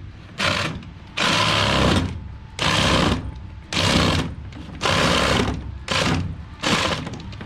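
Cordless power saw cutting a drain pipe in about seven short bursts, each starting suddenly and cutting out after a second or less. The tool keeps stopping because its battery is not properly seated.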